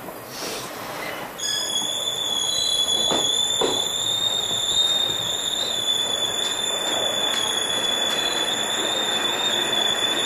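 Train brakes squealing at a steady high pitch as the train slows into a station, starting about a second and a half in, over the running rumble of the wheels, with two clacks of wheels over rail joints soon after.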